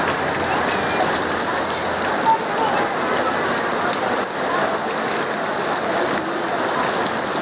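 Heavy rain falling steadily, splashing on wet ground.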